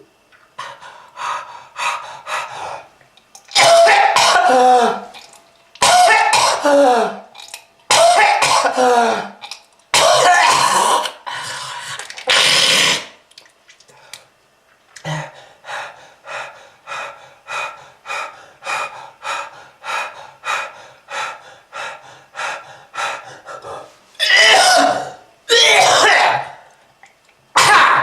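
A smoker's heavy coughing fit: long bouts of hacking coughs, then a run of short coughs at about two a second, then another long bout near the end.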